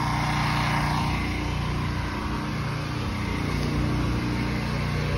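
Engine of a truck-mounted pressure washing rig running at a steady, even drone, with no change in speed.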